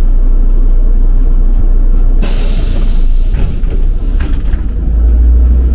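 City bus engine and drivetrain rumbling inside the passenger cabin as the bus drives along, getting louder near the end. A short burst of hissing comes about two seconds in and dies away within a second.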